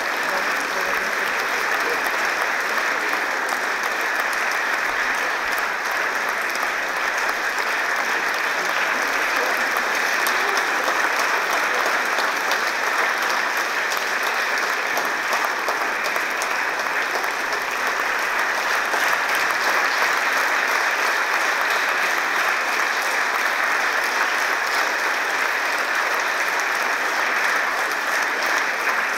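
Audience applauding, dense and even, without a break.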